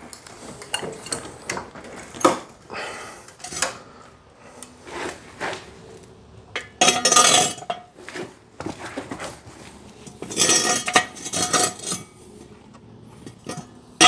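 Hydraulic floor jack being positioned and pumped under a car: scattered metallic clinks and clanks, with two louder bursts of clatter about halfway through and again a few seconds later.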